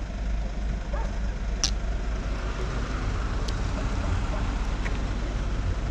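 Steady low rumble of a vehicle engine idling close by, over traffic noise, with a sharp click about a second and a half in and a fainter click about two seconds later.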